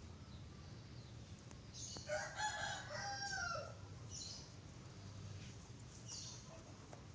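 One drawn-out bird call about two seconds in, lasting under two seconds, rising and then falling in pitch, over a faint steady background hum.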